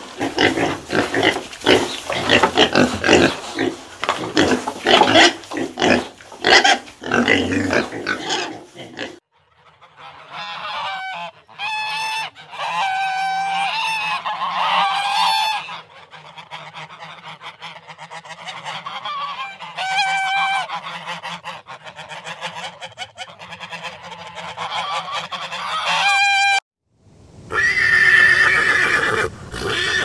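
Piglets grunting and squealing in a dense run, then, after a short pause, waterfowl calling with repeated quacks and honks, then a horse whinnying near the end.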